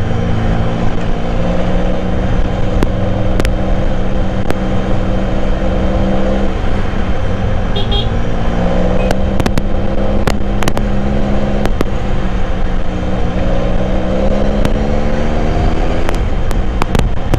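Benelli Café Racer 1130's three-cylinder engine running at light throttle at low road speed, its note steady with gentle dips and rises in pitch. A few faint clicks sound over it.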